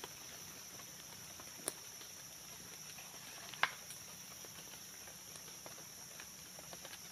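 Steady high-pitched drone of forest insects, with scattered faint crackles and two sharper clicks, about a second and a half and three and a half seconds in.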